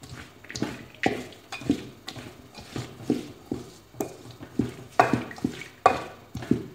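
A wooden spatula stirring mixed nuts in a large stainless-steel pan over a gas flame: a steady run of scrapes and knocks, about two strokes a second, with the nuts rattling against the metal as they are dry-toasted.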